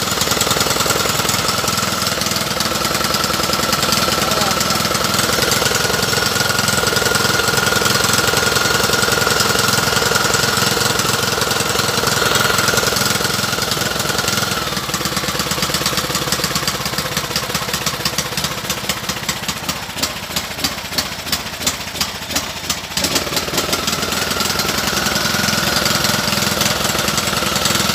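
An engine running steadily. About halfway through its sound changes, and for a few seconds a run of sharp, regular clicks comes through before the steady running returns.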